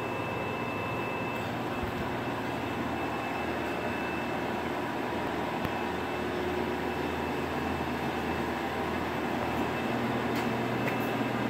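Steady mechanical drone with a low hum and a faint high-pitched whine, unchanging throughout.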